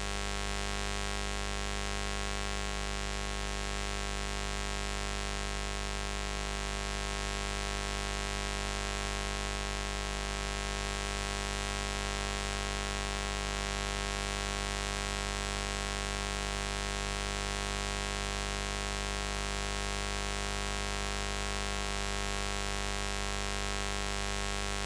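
Continuous electric buzz: a steady drone full of overtones, holding the same pitch and loudness throughout.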